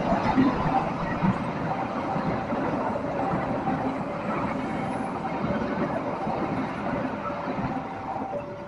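A train passing over a level crossing, its rumbling noise fading, while the crossing's warning alarm sounds faintly as two alternating tones, switching about every half second or more.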